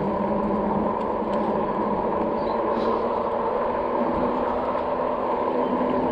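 RadRover fat-tyre electric bike riding along: steady tyre and wind noise with a low, even hum and a few faint ticks.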